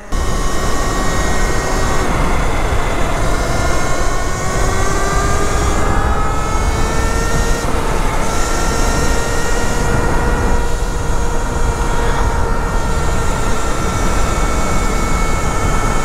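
Talaria Sting electric motorcycle's motor whining under heavy wind rush on the microphone as the bike is ridden at speed. The whine climbs slowly in pitch as the bike gathers speed, breaks off briefly about halfway, then carries on nearly level.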